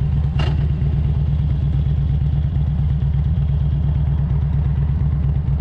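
Harley-Davidson Road King's V-twin engine running steadily under way, a low even pulsing.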